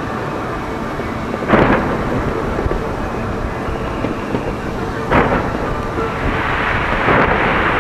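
Fireworks display: a steady rumble of many explosions, with louder sharp bangs about a second and a half in, around five seconds, and near the end.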